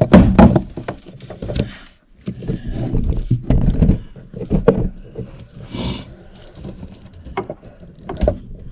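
Irregular rustling, scraping and knocks close to the microphone as electrical wire is pushed down a drilled hole in the wall framing.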